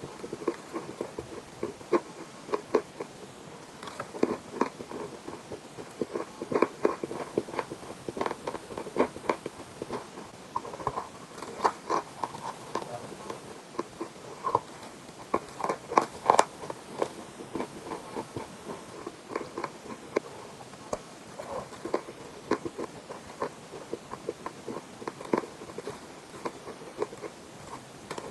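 Chalk with paste being bitten and chewed close to the microphone: many sharp, irregular crunches and clicks, a few a second.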